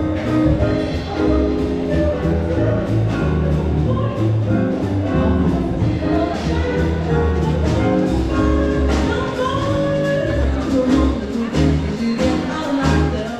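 A live band with a singer performing on the ship's promenade: a steady jazzy song with a strong bass line.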